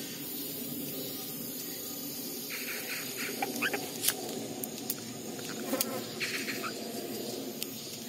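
Amazon parrot nibbling and tearing a leaf with its beak: a few sharp clicks and two short runs of rapid crackling clicks over steady background noise.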